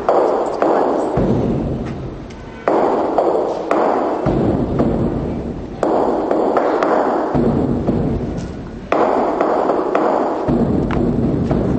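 Large traditional Chinese drums beaten in fast, dense rolls. They come in phrases about every three seconds, each opening with a sudden loud attack and then tapering off before the next.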